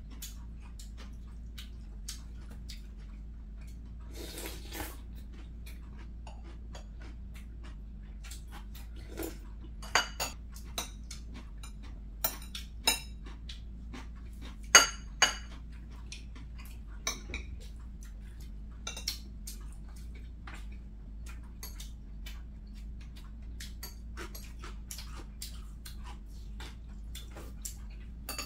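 Metal chopsticks and spoons clinking and tapping against glass bowls and plates during a meal: scattered light taps, with a few sharper clinks near the middle.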